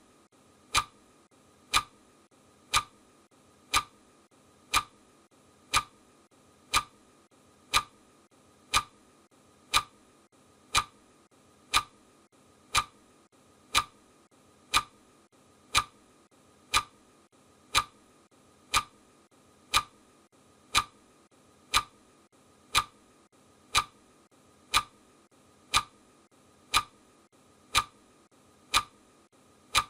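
Clock ticking sound of a countdown timer: one sharp, identical tick each second, steady and even.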